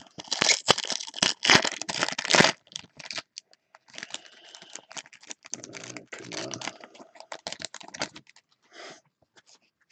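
Foil wrapper of a Topps Chrome baseball card pack being ripped open, with a loud tear in the first couple of seconds, then softer crinkling of the foil as it is handled and peeled back.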